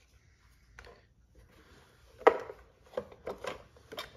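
Small hard parts being handled, clicking and knocking: a faint click early, a sharp knock a little over two seconds in, then three lighter knocks about half a second apart.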